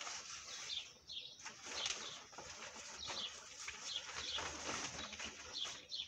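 Fabric storage bags of a pop-up tent rustling and flapping as they are pulled out of one another and shaken open, with short high bird chirps now and then in the background.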